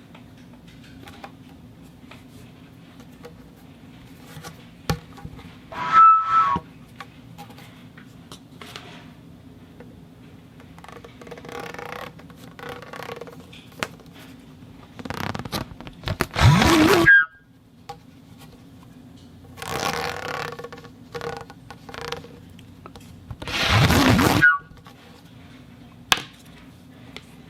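Balls rolled and rattled through a metal conduit pipe, in several separate rushes of a second or so with a ringing metallic tone; the loudest come about 16 and 24 seconds in. A steady low hum runs underneath.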